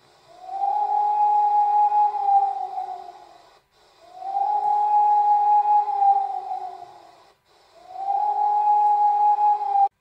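Recording of a 1991 Saudi Arabian air-raid siren wailing. It goes through three rising-and-falling cycles, each climbing quickly, holding, then sliding down, and cuts off abruptly just before the end.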